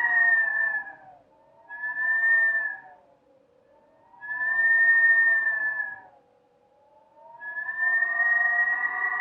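Blizzard wind howling in gusts: a whistling, several-toned howl that swells up and fades away, dying out about a second in, returning briefly twice and rising again near the end.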